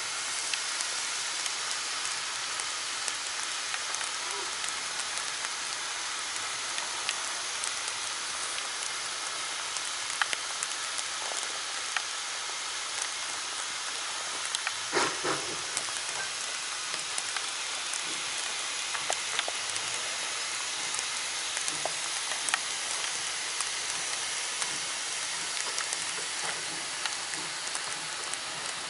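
Steady rain hiss with scattered ticking drops, with a short pitched sound about halfway through.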